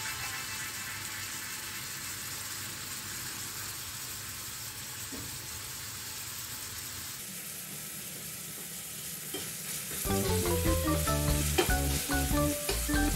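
Sliced onions sizzling steadily in hot oil in a stainless steel pot, stirred with a wooden spoon near the end. Background music comes in about ten seconds in.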